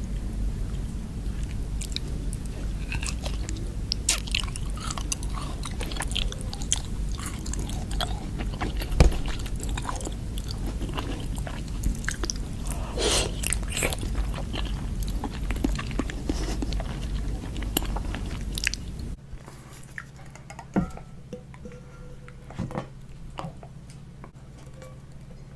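Close-miked chewing and biting of sweets and pastries, many short crunching clicks. A low background hum under the chewing stops suddenly about 19 seconds in, after which the chewing is quieter and sparser.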